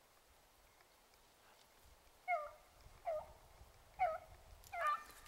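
A beagle baying in four short, evenly spaced calls, starting about two seconds in. This is a hound giving voice on a rabbit's scent trail.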